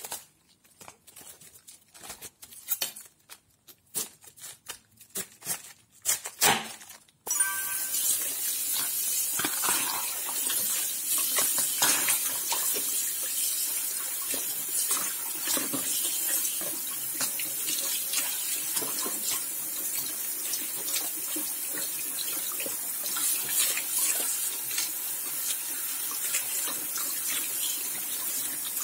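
Crisp cabbage leaves being pulled and torn apart, a scatter of sharp snaps and rustles. About seven seconds in, a kitchen tap comes on suddenly and runs steadily onto cabbage leaves in a plastic bowl in the sink while hands swish and rinse them.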